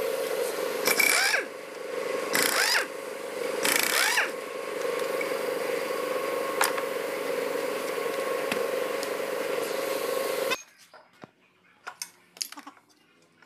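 Pneumatic impact wrench running against the bolts of a Maruti Swift manual gearbox casing, a steady loud rattle with three louder surges in the first few seconds. It cuts off suddenly about three seconds before the end, leaving faint metallic clicks and taps as the aluminium case halves are pried apart with a screwdriver.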